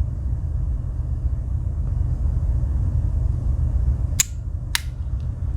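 Steady low hum with two sharp clicks about half a second apart near the end: tools on a Victorinox Cyber Tool 34 Swiss Army knife snapping against their backsprings.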